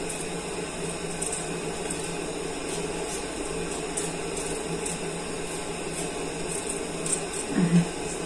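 Small kitchen knife paring a raw potato by hand, faint irregular scraping cuts over a steady low hum. A brief voice sound near the end.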